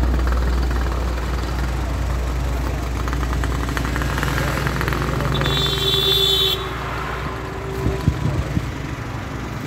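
Road traffic passing close by: a steady low rumble of vehicles, with a vehicle horn sounding for about a second around the middle. A few knocks near the end.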